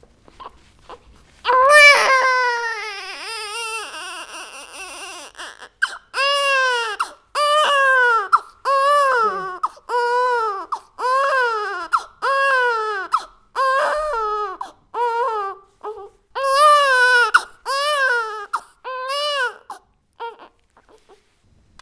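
Baby crying hard: a long wail starting about a second and a half in, then a run of short cries that rise and fall in pitch, about one a second, which stop near the end.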